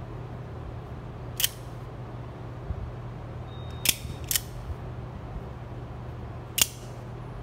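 Out-the-front automatic knife snapping its blade out and back: four sharp metallic clicks, one about a second and a half in, two close together near four seconds and one near the end, over a steady low hum.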